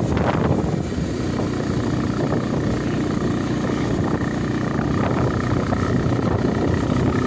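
An engine running steadily with a low rumble; a faint steady whine joins about five seconds in.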